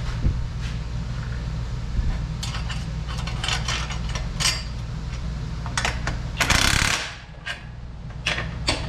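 Hand ratchet clicking in short runs with metal clinks as exhaust clamp nuts are tightened on a pipe-to-muffler joint. A short, louder rasp of ratcheting comes about six and a half seconds in.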